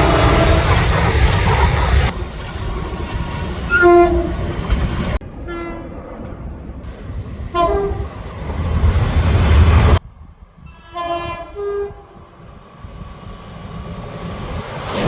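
Train horns sounding short blasts from several different trains in quick succession, over the low rumble of trains running on the rails. About two-thirds of the way through, one horn sounds a lower note and then a higher one.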